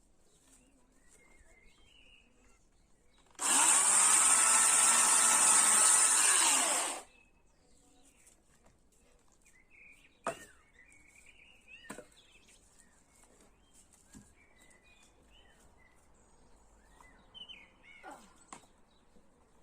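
Chainsaw cutting wood in one burst of about three and a half seconds, its motor pitch rising as it spins up and falling as it stops. Otherwise quiet, with a few bird chirps and faint clicks.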